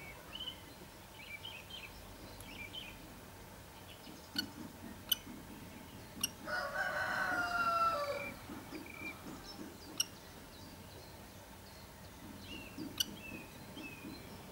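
A rooster crows once, a single call of about two seconds starting about six seconds in, and it is the loudest sound. Around it come a few sharp clicks and faint, short, high chirps.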